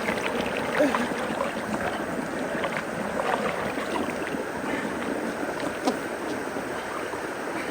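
Floodwater rushing and swirling down into a clogged culvert's inlet in a whirlpool, a steady churning wash broken by many small splashes.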